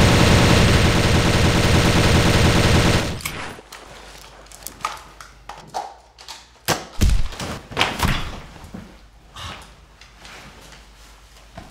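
Rapid full-auto gunfire from an airsoft rifle, stopping abruptly about three seconds in. Then a scatter of separate clicks and thumps, the heaviest about seven seconds in.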